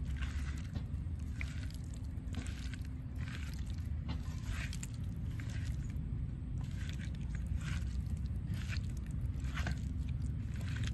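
A hand kneading and turning fish pieces in a wet masala marinade in a steel bowl: irregular squelches and scrapes against the metal, about one a second, over a steady low rumble.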